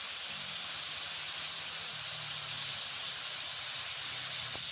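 A steady high hiss that cuts off suddenly near the end.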